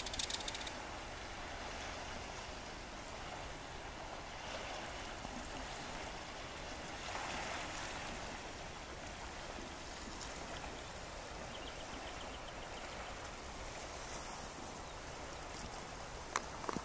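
Small waves washing over a rocky shore: a steady hiss of water that swells a few times, with a sharp click near the end.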